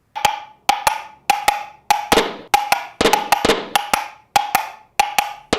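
Home-made sound effect of hollow knocks struck in a steady clip-clop rhythm: quick pairs of strikes about every 0.6 s, each with a short ringing tone.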